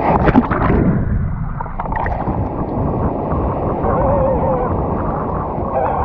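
A shore-break wave breaking over a camera right at the water's surface: a burst of splashing in the first half-second, then a steady rush of churning, gurgling whitewater.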